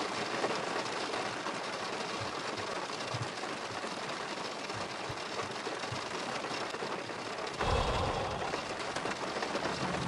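Steady hiss of rain falling, with a deep low rumble coming in about three-quarters of the way through.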